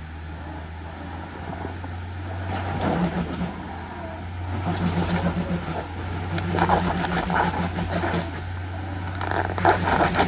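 Off-road 4x4's engine running steadily on a trail, with several louder surges of throttle about 3, 5, 7 and 10 seconds in.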